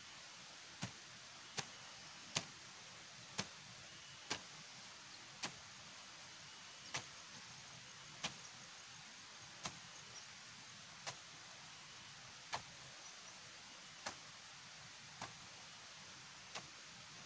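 Steady hiss of rain, with sharp single knocks or clicks about once a second, unevenly spaced.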